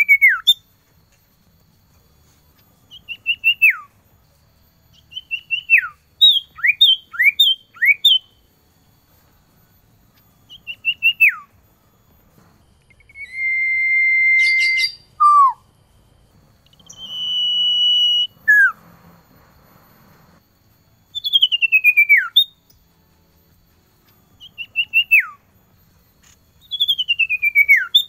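Male common iora (cipoh) singing, calling to a female: short runs of clear whistles that drop steeply in pitch, repeated every two or three seconds. About halfway through come two long, steady whistled notes.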